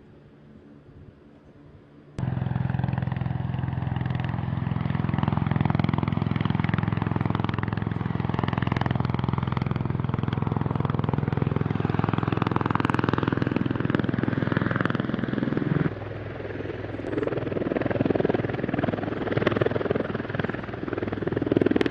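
Bell Boeing V-22 Osprey tiltrotor running, a loud steady drone of its twin turboshaft engines and proprotors. The drone starts abruptly about two seconds in. About two-thirds of the way through it turns rougher and less even.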